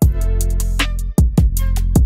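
Background music with a heavy bass line and a steady drum beat, resuming after a brief drop-out just before.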